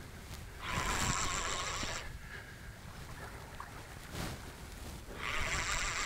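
Spinning surf reel whirring in two bursts of a second or so, one about a second in and another near the end, while a hooked fish is being played in on the line.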